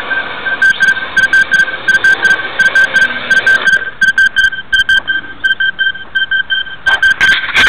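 A rapid, irregular train of short high-pitched beeps, all at one fixed pitch, each with a faint click. It runs on unchanged throughout and grows louder near the end.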